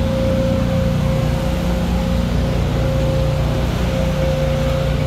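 An engine or machine running steadily: a low drone with a constant higher hum over it that does not change.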